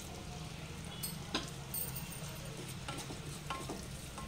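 Wooden spatula stirring crushed almonds roasting in ghee in a nonstick pan: scattered light taps and scrapes against the pan.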